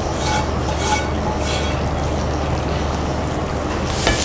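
Spiced ghee tempering (tadka) poured from a small pan into simmering dal makhani in a kadhai, in a few short wet pours over the first two seconds, with a silicone spatula scraping the last of it out of the pan near the end.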